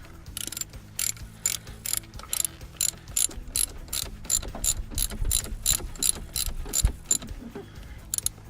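Ratchet wrench clicking in quick, even strokes, about three clicks a second, as a nut on the starter is run down. The clicking stops shortly before the end.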